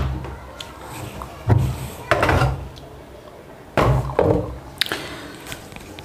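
Hollow knocks and clunks of plastic washing-machine parts being handled in the wash tub as the pulsator is taken off, about six in two short clusters.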